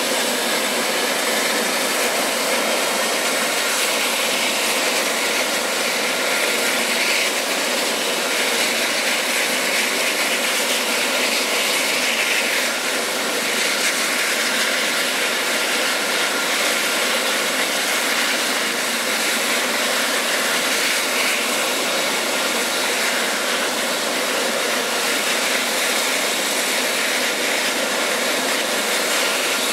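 Eurocopter EC135 air-ambulance helicopter running on the ground: a steady whine of its twin turbine engines with the whirr of the turning main rotor and fenestron tail fan, holding a constant pitch and level.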